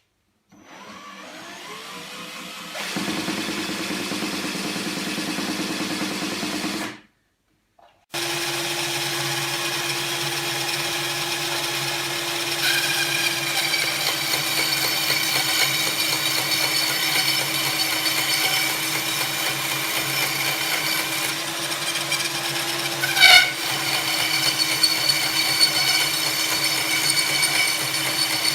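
An electric drill driving a homemade wooden band saw, running at speed with a steady motor whine. It spins up over the first few seconds, drops out for about a second, then runs steadily again. A short, sharper noise stands out a little past three-quarters of the way through.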